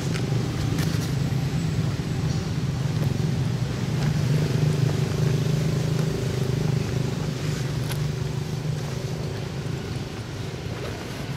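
A motor engine running with a steady low hum that grows louder about halfway through and eases off toward the end, with a few faint clicks.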